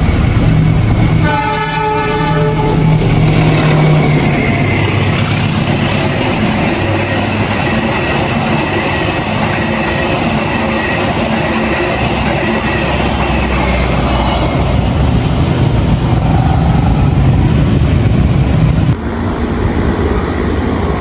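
A diesel-hauled passenger train passing close: the locomotive's engine drones as it comes up, its horn sounds once for about a second, then a long line of coaches rushes by on the rails with wheel clatter. About 19 s in the sound cuts abruptly to a quieter, steadier train rumble.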